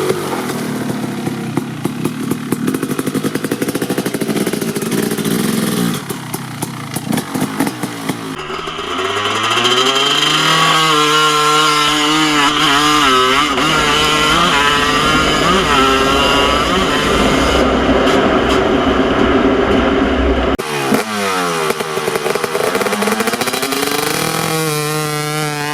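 KTM 250 SX's single-cylinder two-stroke engine accelerating and easing off over and over, its pitch climbing to high revs and dropping again several times. About six seconds in it stutters with short pops off the throttle, and it holds high revs for a long stretch in the middle.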